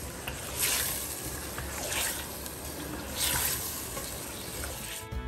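Mutton, onions and garlic paste sizzling in oil in a steel pressure cooker while a wooden spoon stirs them, the sizzle swelling with each stir about every second and a half; this is the bhuna stage, frying the meat until its colour changes.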